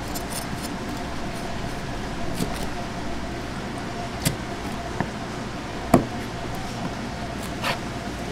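Kitchen knife working a gizzard shad on a cutting board: scraping along the fish, then three sharp knocks of the blade striking the board about four, five and six seconds in, the third the loudest. A steady background hum runs underneath.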